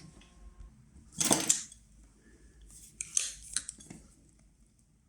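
Handling noise as network cable and small tools are picked up and moved: a few short rustles and light metallic clinks, the first about a second in and a cluster around three to four seconds in.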